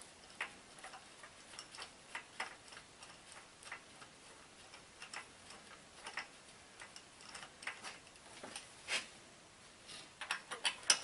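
Faint, scattered clicks of a ratchet wrench working the number one spark plug out of the engine, irregularly spaced, with a quicker run of clicks near the end.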